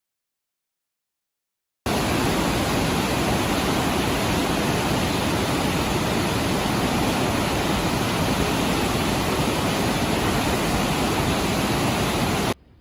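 Dawson Falls, a wide waterfall on the Murtle River, heard up close as a loud, steady, deep rush of falling water. It starts abruptly about two seconds in and cuts off suddenly just before the end.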